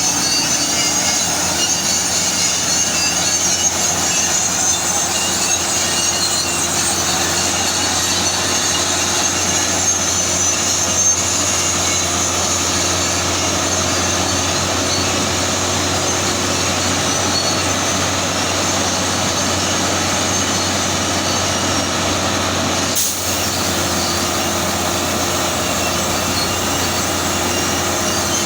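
Heavy truck running steadily, a low engine hum under a continuous high-pitched metallic squeal, briefly dipping near the end.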